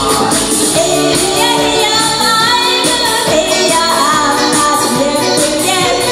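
A woman singing a Korean popular song into a microphone over backing music with a steady beat.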